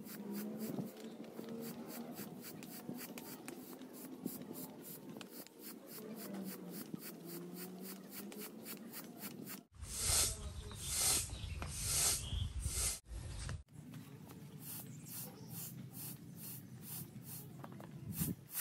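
Hand air pump being worked quickly, each stroke a short rushing puff of air, about four a second, as it inflates the top ring of an inflatable quick-set pool. For a few seconds past the middle the strokes are louder and fuller.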